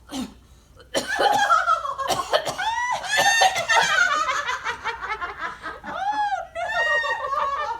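High-pitched cackling laughter in a witch-style cackle, starting about a second in and going on in repeated rising-and-falling peals.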